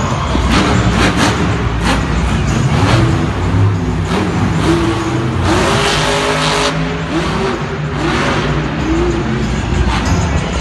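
Monster truck engine revving hard again and again, its pitch climbing and dropping with each blip of the throttle over a deep steady rumble, echoing around a stadium.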